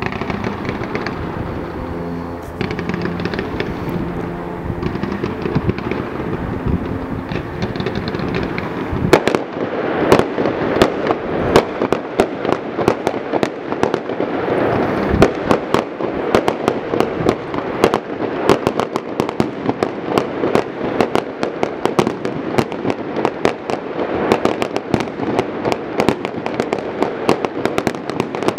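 Fireworks display: aerial shells bursting and crackling, at first with a noisy wash over low steady tones, then from about nine seconds in a dense, continuous crackle of many sharp reports a second.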